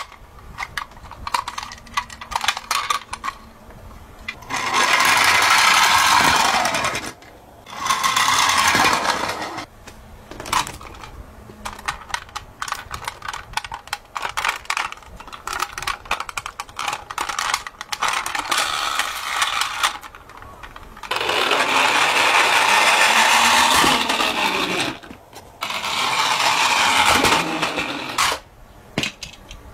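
Plastic toy ambulance handled with many small clicks and rattles, and four bursts of whirring from its wheels and gears being spun, each lasting a couple of seconds.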